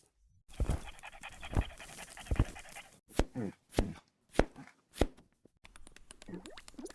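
A dog panting, then about four short, sharp yips with falling pitch, a little over half a second apart, in the second half.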